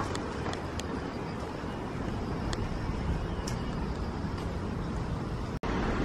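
Steady outdoor city ambience of road traffic noise, with a few faint clicks in the first few seconds. It drops out briefly at an edit near the end.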